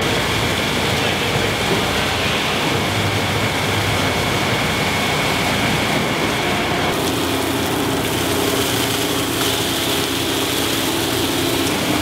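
Steady drone of winery crush-pad machinery working a grape delivery. A high whine runs until about seven seconds in, then gives way to a lower hum.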